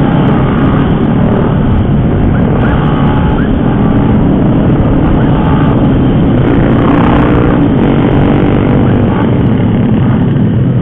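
Yamaha Jupiter MX motorcycle's single-cylinder engine running steadily at cruising speed, under heavy wind noise on the microphone.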